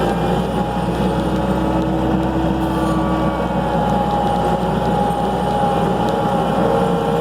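Skid steer engine running steadily, with a steady whine over it.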